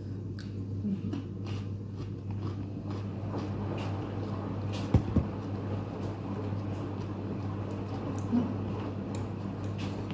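Someone chewing and biting food, with scattered small crunching clicks over a steady low hum. Two dull knocks come about five seconds in, and a softer one near the end.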